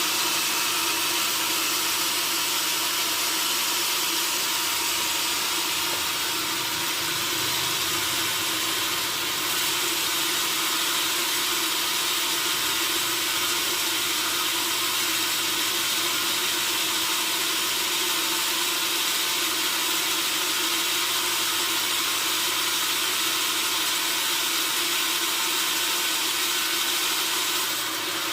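Sawmill band saw running steadily through a log, a continuous hissing saw noise over the drone of the mill's machinery.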